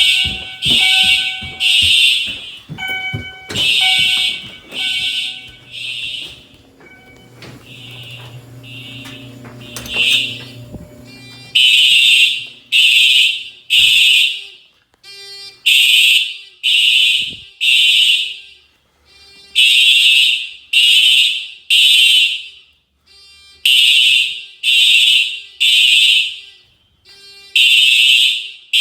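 Simplex fire alarm system sounding a temporal-three evacuation signal: three short high tone blasts, a pause, then again, about every four seconds. The blasts weaken for several seconds along with a low hum and clicks, then come back at full strength about eleven seconds in.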